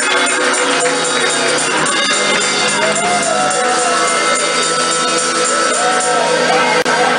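Live church praise music playing loudly and steadily, with sustained chords, gliding tones arching over them, and a rhythmic jingling beat like a tambourine.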